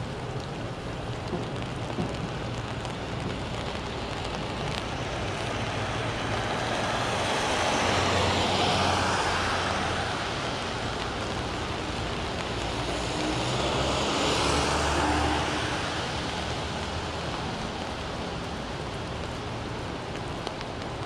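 Two vehicles passing one after another on a wet street, their tyre hiss and engine hum swelling and fading about six seconds apart, over a steady wash of rain.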